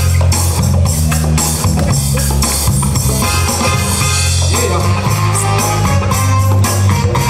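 Loud breakbeat music: a drum kit groove over a heavy bass line.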